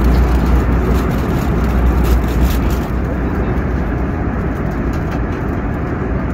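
Steady cabin noise of an Airbus A321neo airliner in flight: a constant roar of engines and airflow, strongest in the low end. About three seconds in the hiss thins out and the sound turns duller.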